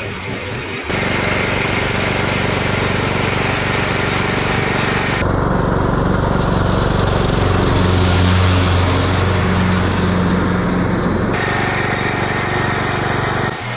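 Riding lawn tractor running and mowing tall grass with circular saw blades fitted in place of its mower blades: a steady engine drone with the spinning blades. About five seconds in it turns deeper and louder for several seconds, then lighter again near the end.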